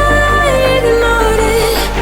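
Background pop song: a held sung melody over a steady electronic backing.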